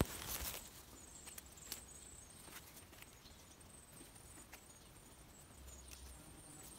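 Hands handling freshly cut chanterelle mushrooms among moss and leaves and dropping them into a plastic bucket: soft rustling and scattered small clicks, with a sharp click and a brief rustle at the very start.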